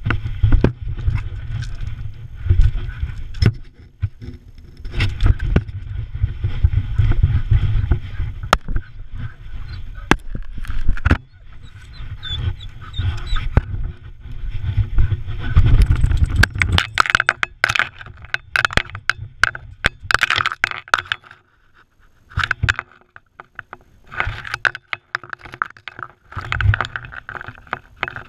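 Rubbing and rumbling of a camera strapped to an Irish terrier as the dog moves about, then, from about halfway, many sharp scrapes and clicks of dirt and loose stones around it.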